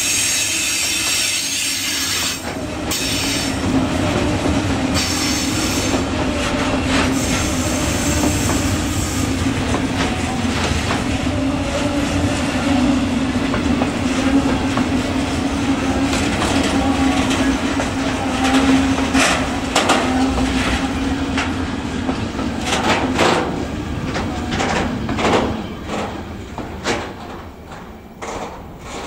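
Freight train wagons rolling past. Their wheels squeal with high tones through the first part, then a run of clacks over the rail joints thins out and fades as the end of the train goes by.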